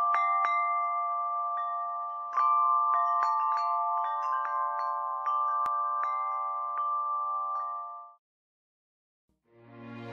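Chimes ringing: a cluster of sustained metallic notes with many scattered higher strikes, fading out about eight seconds in. After a short silence, music starts to fade in near the end.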